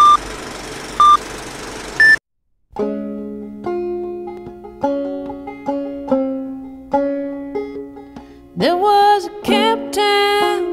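Film-countdown leader: a steady noise with a short beep about once a second, the last beep higher-pitched, cutting off about two seconds in. After a brief silence, a banjo starts picking a tune, and a singing voice comes in over it near the end.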